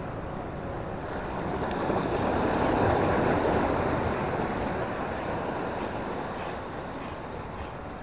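Sea surf washing against the rocks of a seawall, swelling to a peak about three seconds in and easing off, with wind buffeting the microphone.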